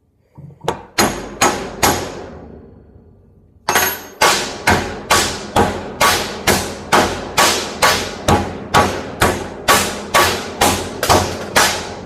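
Hammer striking a steel chisel held in the weld of a microwave oven transformer's iron core, cracking the weld open: a few blows, a short pause, then a steady run of about twenty blows at a little over two a second, each with a brief metallic ring.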